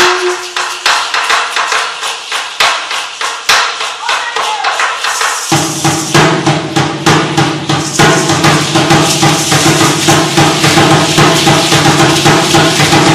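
Aztec dance percussion: a dense, irregular clatter of shaken rattles. About five seconds in, a deep, steady drum sound comes in under the rattling and continues with it.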